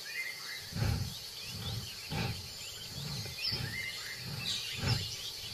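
Tiger sniffing at the base of a tree, short low sniffs repeating about twice a second as it follows a scent. Small birds chirp faintly in the background.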